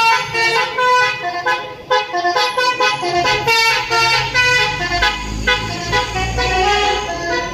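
Basuri multi-tone musical bus air horn playing a quick tune of stepped notes, joined from about three seconds in by the low rumble of the bus engine.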